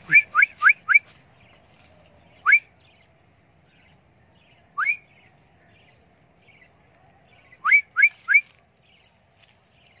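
A man whistling short, rising recall whistles to call back a lost budgie: four quick whistles at the start, a single one at about two and a half seconds, another at about five seconds, then three quick ones near the end.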